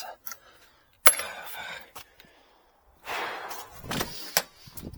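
Tools and hardware being handled: a sharp clack about a second in, then rustling and clinking with a couple of sharp clicks near the end.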